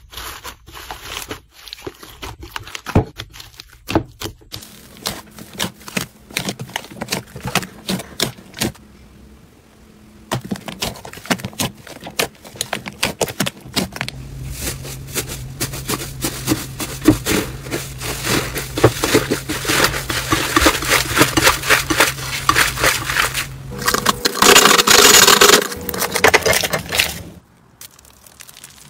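Hands squeezing, poking and pressing slime, some of it mixed with foam beads: rapid clicking, popping and crackling, densest and loudest a few seconds before the end. There is a short lull about nine seconds in, and a low steady hum under the middle part.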